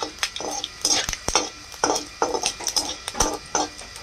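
Long metal spatula scraping and clinking against a metal kadai in a quick, irregular run of short strokes, stirring whole spices frying in a little oil.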